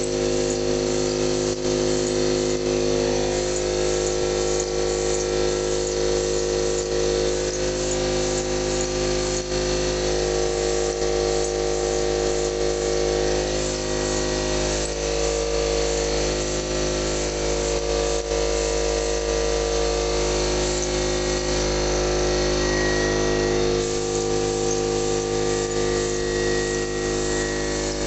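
Compressed-air paint spraying: a gravity-feed spray gun hissing steadily over the even, humming run of the air compressor that drives it.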